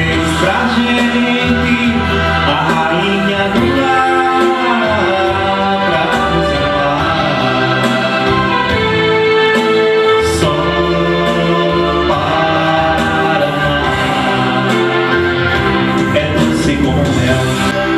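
Music of a song playing between sung verses, with full backing and a melody line but no words.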